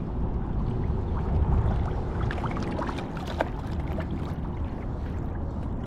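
Water sloshing and trickling around a pontoon boat's hull over a steady low rumble, with a scatter of small splashes and clicks in the middle.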